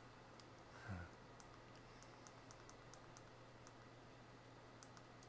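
Near silence: a steady low room hum with faint, irregular sharp clicks scattered throughout, and a brief low thump about a second in.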